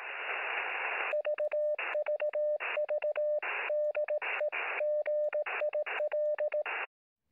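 Morse code received over a radio: about a second of static hiss, then a single steady beeping tone keyed in short and long elements (dots and dashes), with static rushing in between them. It stops abruptly near the end.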